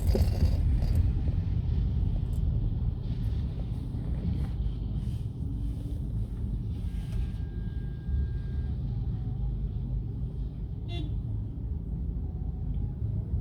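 Low, steady rumble of a car's engine and road noise heard from inside the cabin while driving in traffic, with a faint thin tone for about two seconds past the middle and a short click near the end.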